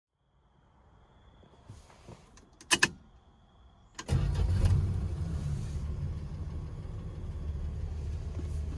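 A few sharp clicks, then the 1971 Dodge Dart Swinger's slant-six engine is started with the key about four seconds in. It catches at once and settles into a steady idle.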